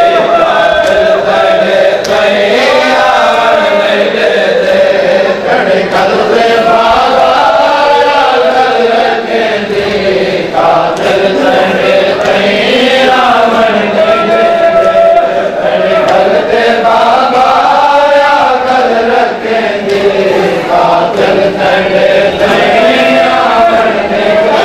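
Men's voices chanting a noha (Shia mourning lament) together in a slow, rising and falling melody, with no pauses.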